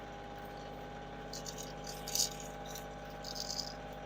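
Tractor engine idling steadily in the background, with a few brief light rattles about a second and a half, two seconds and three and a half seconds in.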